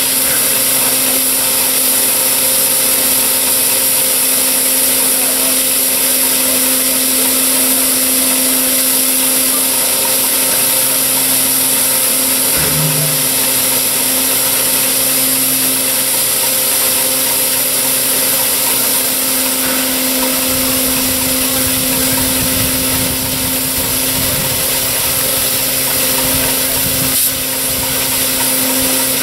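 LNER A4 Pacific steam locomotive standing at rest, with a steady loud hiss of steam and a steady hum under it; a low rumble joins in during the last third.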